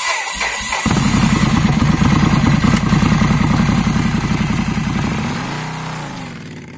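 Ducati Scrambler 800's air-cooled L-twin cranked on the starter, catching about a second in and then running with a loud, lumpy idle through an aftermarket stainless steel exhaust. Near the end the pitch rises and falls once as the sound fades.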